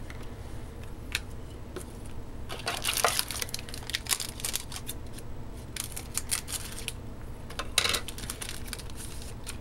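Foil trading-card pack wrapper being cut with scissors and pulled open by hand, crinkling and crackling in several bursts with a few sharp clicks between them.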